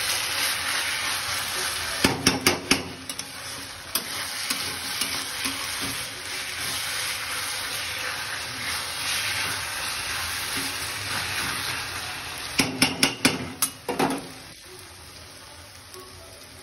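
Sliced onions sizzling as they fry in oil in a steel kadai while a spatula stirs them, the base for a chicken curry. There are two quick runs of sharp spatula knocks against the pan, about two seconds in and again around thirteen to fourteen seconds. Near the end the stirring stops and the sizzle goes quieter.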